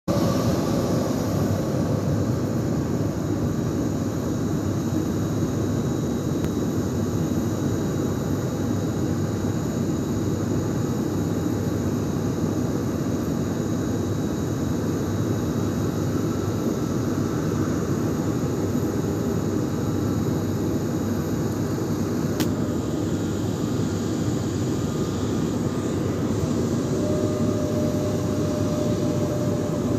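Jet engines of a flydubai Boeing 737 airliner running with a steady, even rumble as the aircraft moves along the runway.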